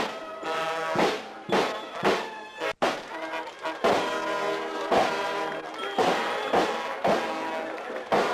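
A marching village brass band with snare drums playing a march: brass with a steady drum beat about twice a second. The sound drops out for an instant about three seconds in.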